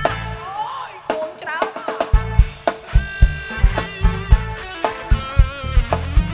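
Live band playing Cambodian orkes dance music, led by a drum kit. The kick and snare drop back for about two seconds, then return in a steady beat under keyboard and melody lines.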